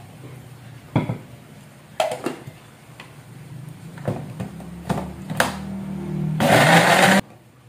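Electric blender chopping shallots and garlic in a little water. A steady low motor hum runs with a few clicks and knocks, then a loud burst of blending comes about six and a half seconds in and cuts off suddenly.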